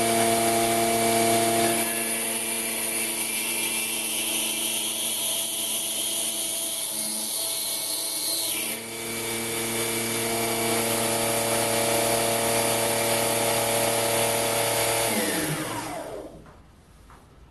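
Metal lathe running with a motor-driven tool-post grinder grinding a countersink into hard steel stock: a steady machine hum with a high grinding hiss that changes as the cross slide is fed in. About fifteen seconds in the machinery is switched off and spins down to a stop.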